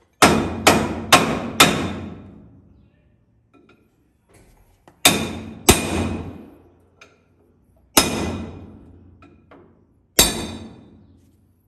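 Hammer blows on steel, each strike ringing out: a quick run of four, then a pair, then two single blows.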